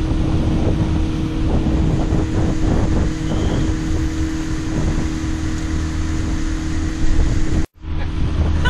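Pontoon boat's outboard motor running steadily under way, a constant hum, with wind buffeting the microphone. The sound breaks off for an instant near the end and resumes.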